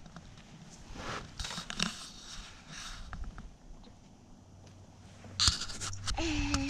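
Faint scattered rustling and handling noise, with a sharp click about five and a half seconds in, followed near the end by a short steady pitched tone.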